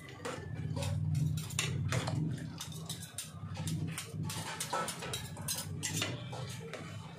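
Metal utensils, a fork and a ladle, clinking and scraping against an aluminium pot while stirring squash soup, with many quick knocks. A low rumbling hum runs underneath, strongest in the first few seconds.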